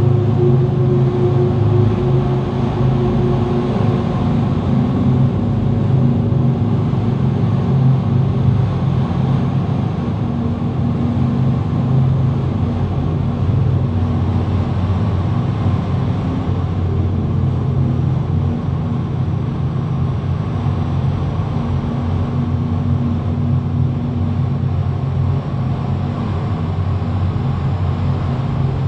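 Experimental ambient soundtrack: a dense, steady low drone of several held tones over a rumbling haze.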